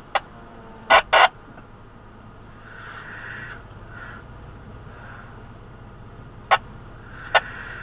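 Off-road 4x4 creeping over a rocky trail: a low steady engine rumble with sharp knocks and clunks, once near the start, twice about a second in and twice near the end.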